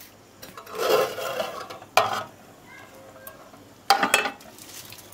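Metal spoon stirring and scraping in a cooking pot of finished jackfruit curry, with sharp clinks against the pot about two and four seconds in.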